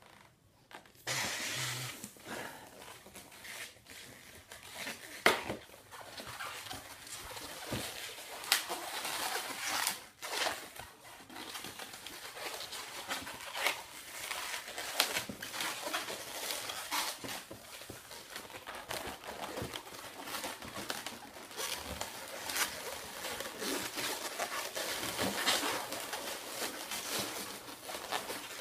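Latex 260 twisting balloon being stretched and twisted by hand: irregular squeaks and rubbing of rubber on rubber.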